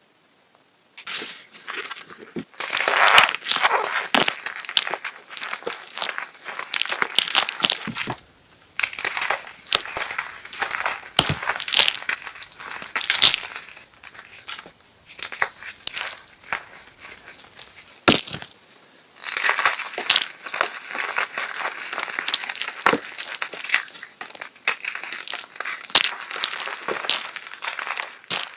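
Hard chalk block and chunks being crunched and crumbled, a dense run of crisp, crackling snaps starting about a second in, with a brief lull about two-thirds of the way through.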